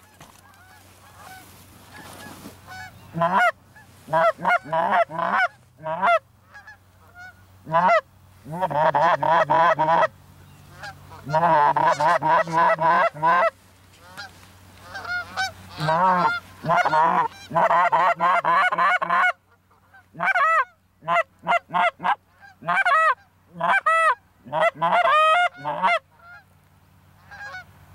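A flock of geese flying over, honking in repeated bursts of quick calls with short pauses between them, starting a few seconds in.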